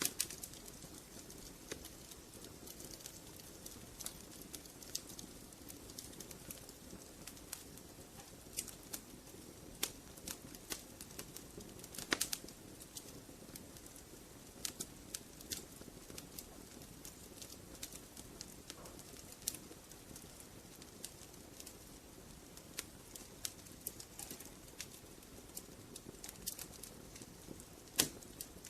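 Wood logs burning in a fireplace, crackling and popping: scattered, irregular sharp pops over a soft, steady hiss of flame, with a few louder cracks about twelve seconds in and near the end.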